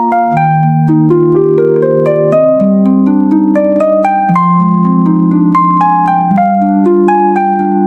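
Instrumental music on a plucked string instrument, with a flowing run of ringing notes over sustained low notes.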